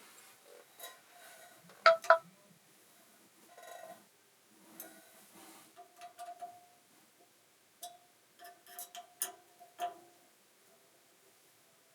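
Small hard parts being handled and set down: a series of clicks and clinks with brief ringing, the two loudest clicks close together about two seconds in.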